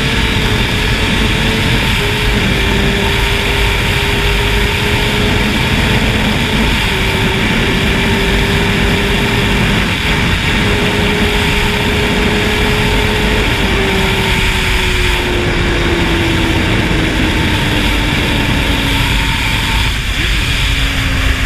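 Honda CBR600F4i inline-four through a slip-on exhaust, running at a steady engine speed under heavy wind rush, with small dips in pitch. From about halfway through, its pitch falls slowly and steadily as the bike slows.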